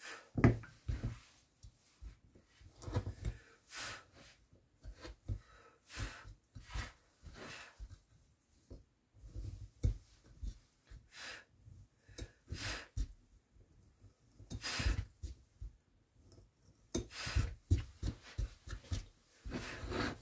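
Hand woodcarving tool cutting into wood: short, irregular scraping strokes with brief pauses between them.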